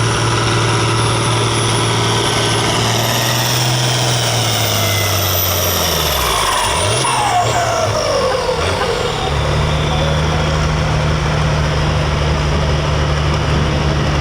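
Farm stock pulling tractor's diesel engine running hard, then throttling back about five seconds in as a high whine falls steadily in pitch, and settling into a steady run again from about nine seconds.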